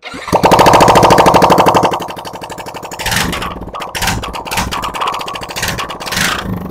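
Yamaha R15 M's single-cylinder engine running with its silencer removed, exhaust open with nothing fitted. It is revved high for the first two seconds, then drops to a rough idle with short throttle blips about three, four, four and a half and six seconds in, a very nasty sound.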